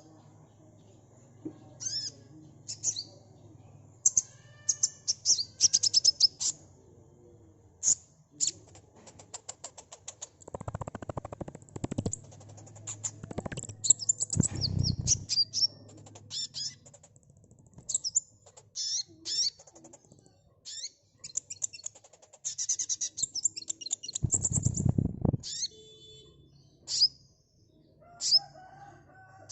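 Sunbird (kolibri) song: runs of sharp, high chirps and rapid trills in quick bursts, with brief pauses between them. Low, rough noise sounds twice underneath: in the middle and again about three-quarters of the way through.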